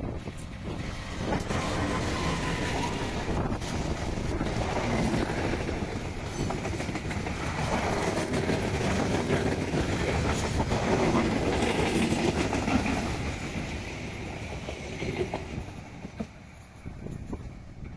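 Train passing close by, its wheels clattering over the rail joints. It is loud for most of the time and fades away near the end.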